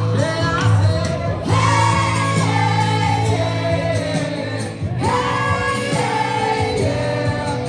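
Live amplified pop song: a woman singing into a microphone over acoustic guitar, with a steady bass line underneath.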